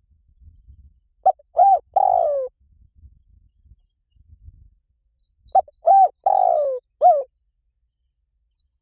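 Spotted dove cooing: two phrases about four seconds apart, each a couple of short hooked coos, a longer coo that falls in pitch, and a short final note.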